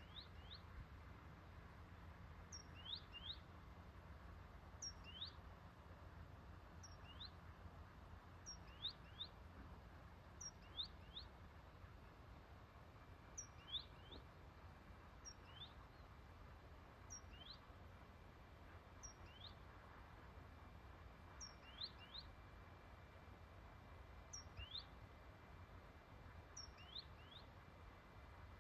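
A bird calls faintly and over and over. Each call is a short high falling note followed by one or two quick rising chirps, repeated about every two seconds over a low steady background rumble.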